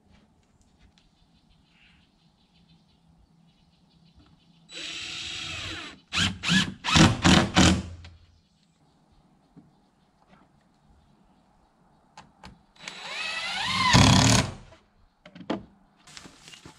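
Power drill driving screws to fasten trim boards around a wooden door. It runs in two spells: the first, about five seconds in, ends in a few short trigger bursts, and the second, about thirteen seconds in, rises in pitch as the screw draws tight.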